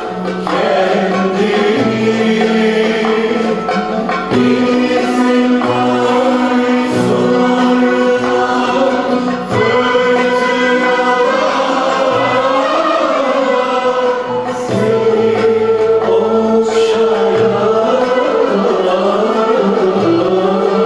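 A mixed choir singing a Turkish art-music song in phrases, accompanied by an ensemble of traditional Turkish instruments: kanun, oud and violin.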